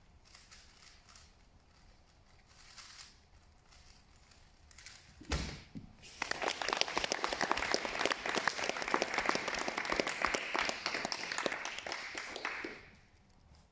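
A single thump about five seconds in, then an audience clapping for about seven seconds before the applause dies away near the end.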